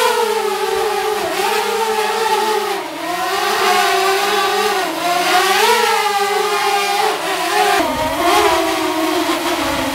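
DJI Mavic Air quadcopter hovering on its stock DJI propellers: a steady, whining propeller buzz whose pitch wavers up and down as the motors adjust. About eight seconds in, the sound cuts to the same drone flying on Master Airscrew low-noise propellers.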